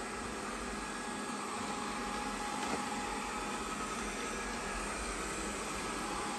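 GleeU GRS1 robot vacuum running, a steady whirring hiss of its suction motor and brushes with a faint steady whine over it.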